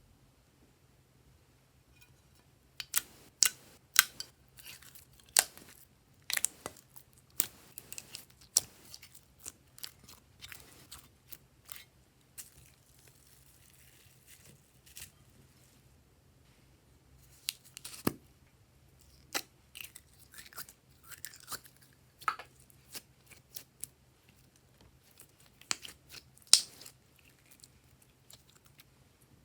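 Glossy slime being worked, giving sharp, irregular clicking pops in clusters with short quiet pauses between them.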